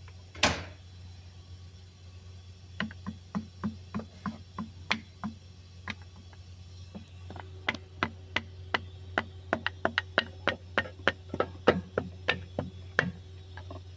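Wooden hammer handle tapping down on a piston crown, driving the piston and its rings into the cylinder bore of a Perkins 1300 series diesel block. One heavier knock comes first, then a long run of light wooden knocks about three a second that get louder partway through.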